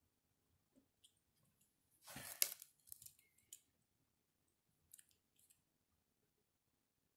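Faint scratching of a mechanical pencil drawing on a slice of raw wood, a few short strokes, with one louder scrape about two seconds in.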